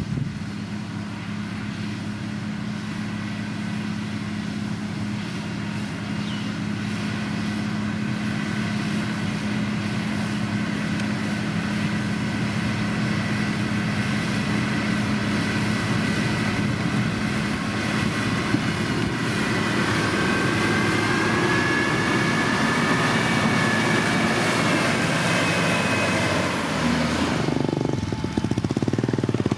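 Diesel engine of heavy road-construction machinery running steadily, with a whine that grows louder in the second half. The sound changes abruptly near the end.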